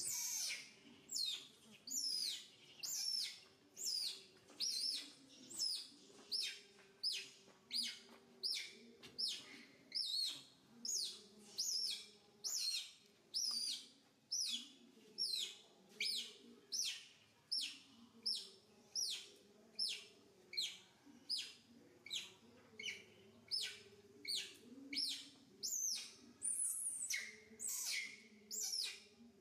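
Young macaque screaming over and over, high falling squeals about one and a half a second, while its legs are massaged and flexed.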